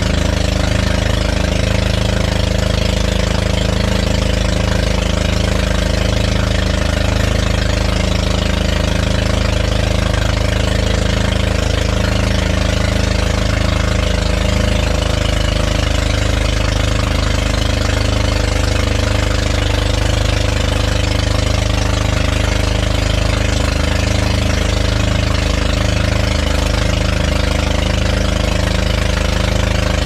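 Outrigger motor boat's engine running steadily while under way, with water rushing and splashing along the hull and outrigger floats.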